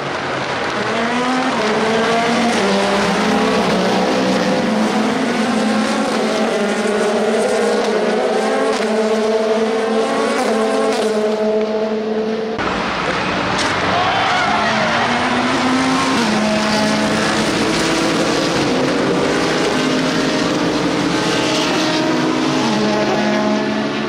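Several IMSA sports-prototype and GT race cars running past at racing speed, their overlapping engine notes rising and falling as they brake and accelerate. The sound changes abruptly about halfway through.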